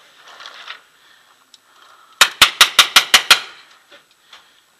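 Smart Parts Vibe paintball marker firing a rapid string of about eight shots in just over a second, each a sharp pop.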